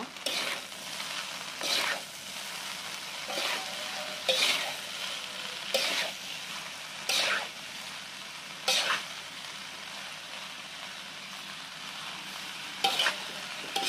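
Rice vermicelli stir-frying in a large wok: a steady sizzle, with the metal spatula scraping the pan and tossing the noodles about every one and a half seconds. The strokes pause for a few seconds, then come twice in quick succession near the end.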